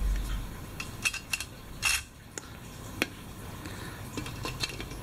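Light metallic clinks and taps of titanium ultralight stove parts being handled and knocked together: a cluster of sharp clinks about a second in and a single clink near three seconds.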